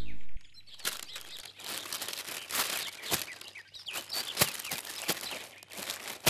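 A held music chord cuts off just under half a second in. After that comes quiet outdoor ambience: birds chirping, and irregular dry crackling and rustling of leaves.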